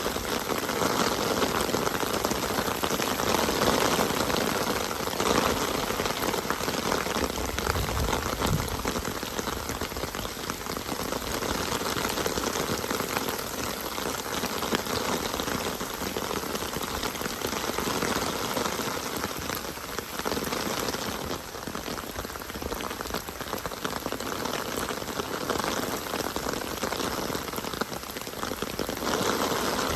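Steady rain falling on surfaces: a dense, even patter that swells and eases slightly.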